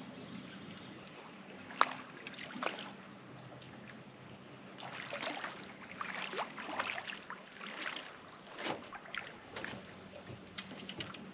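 A small hooked catfish splashing and thrashing at the surface of shallow water as it is reeled in on rod and line. It makes a run of irregular splashes through the second half, after a single sharp knock about two seconds in.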